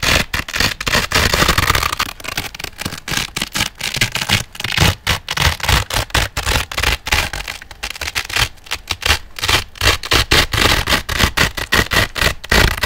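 Hook-and-loop velcro ripped apart and pressed together close to the microphone, in quick irregular crunchy tearing strokes with brief pauses.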